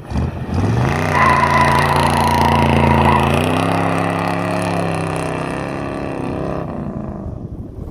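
A vehicle engine revs up, holds high revs with a whine on top, then slowly winds down before cutting off abruptly.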